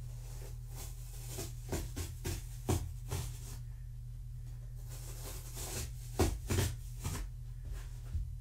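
Short scratchy rustles and taps in two brief clusters, over a steady low electrical hum.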